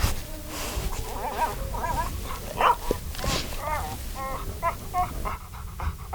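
An animal's short, repeated whining calls over a steady background hiss, with a longer call falling in pitch at the very end.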